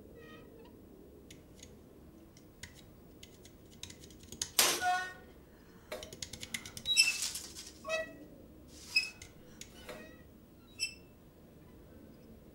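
A rat squeaking: a run of short, high squeals, the loudest about four and a half seconds in and again around seven seconds, with light scratchy clicks in between and before them.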